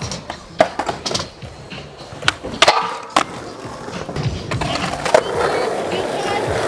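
Skateboards at a skatepark: several sharp clacks of boards popping and landing in the first three seconds, then the steady rolling rumble of wheels on asphalt growing louder toward the end.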